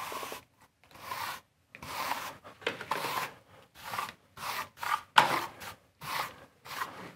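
Hand trowel scraping and smoothing across a wet layer of mortar-like brick-slip compound on a wall, in a dozen or so short, irregular rasping strokes.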